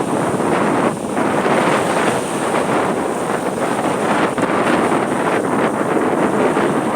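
Strong wind buffeting the microphone: a loud, rushing noise that surges and eases without a break.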